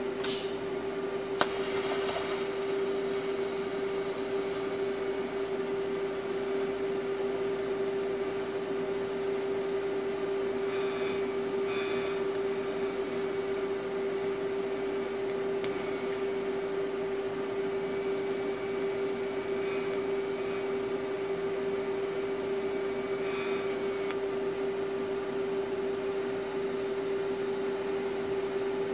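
TIG welding arc from an Alpha-TIG 200X on steel tubing, struck right at the start with a crackle and a sharp click, then running as a steady hiss for about twenty seconds before cutting off. A constant hum runs underneath throughout.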